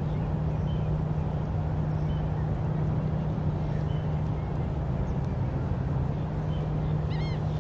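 Steady low hum of a distant engine under a constant wash of outdoor noise, with faint scattered bird chirps and a quick run of bird notes about seven seconds in.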